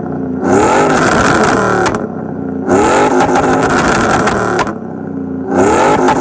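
GMC Sierra pickup's exhaust as the engine is blipped three times, each rev rising then falling back to a steady idle. The exhaust pops and crackles on the lift-off after the first two revs, and the third rev starts near the end.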